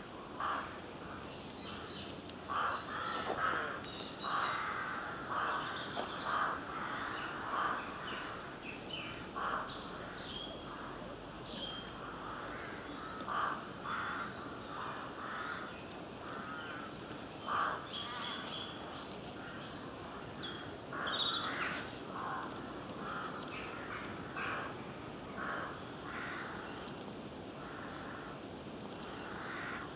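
Birds calling: a steady run of short calls, about one or two a second, with higher chirps among them.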